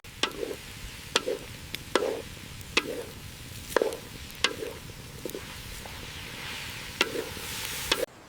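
A knife chopping on a cutting board at a slow, regular pace: about nine sharp knocks, roughly one a second, over a steady hiss.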